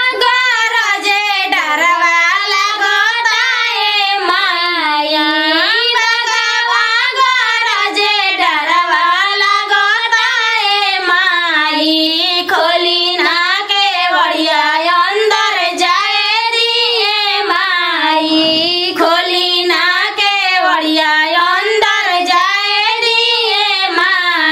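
Brass trumpet playing a single wedding-band melody line that slides and wavers in pitch, with only brief breaks.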